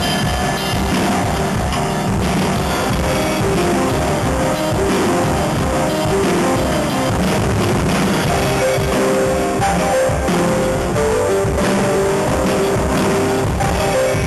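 A live band playing: electronic keyboard and drum kit together, with sustained keyboard notes over a steady drum beat.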